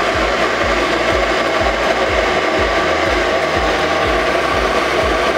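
Electric blender motor running steadily, puréeing a thick mixture of soaked bread and yellow chili sauce.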